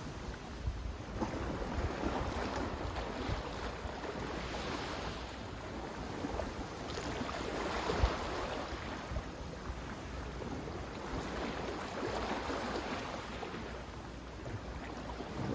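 Sea waves washing in, the noise swelling and falling back every few seconds, with wind rumbling on the microphone. A brief knock about eight seconds in.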